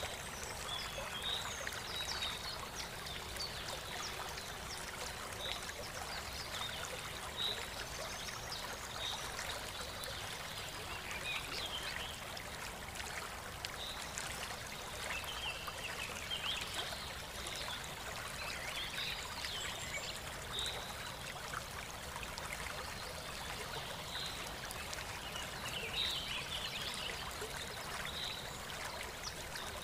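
Water pouring in a thin, steady stream from a small pipe into a miniature cement tank, fed by a battery-powered mini water pump.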